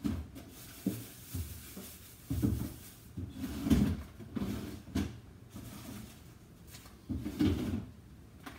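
Kitchen cupboard doors and drawers being opened and shut while someone rummages for ingredients: an irregular string of knocks and thumps, the loudest a little under four seconds in and at five seconds, with a longer low rumble about seven seconds in.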